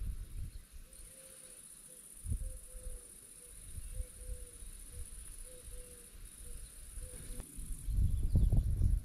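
Steady high-pitched insect drone that stops shortly before the end, with a faint run of short low notes repeating about twice a second beneath it. Low muffled rumbling swells near the end and is the loudest part.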